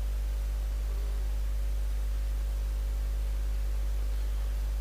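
Steady low electrical hum with an even hiss underneath, typical of a recording or amplification system's mains hum.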